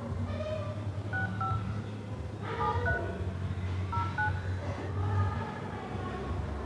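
Phone keypad tones as a number is dialed: about six short two-tone beeps, coming in quick pairs.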